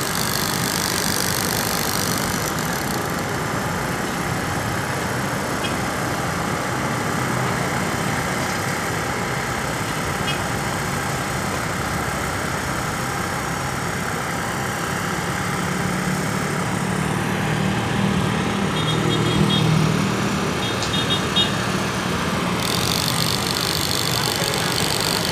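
Steady rumble of running engines, with a low hum that grows stronger in the second half and a few light clicks.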